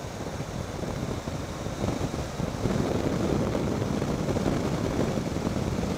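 Wind rushing over the microphone of a Triumph Tiger 800 XCx motorcycle on the move, with engine and tyre noise underneath. It grows louder about two and a half seconds in.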